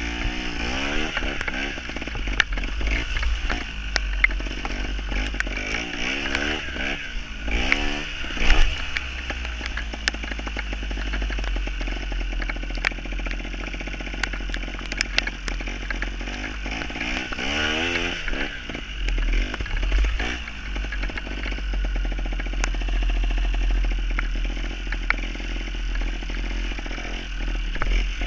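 Gas Gas trials motorcycle's two-stroke engine revving up and dropping back several times, over a steady low rumble, with scattered sharp clicks.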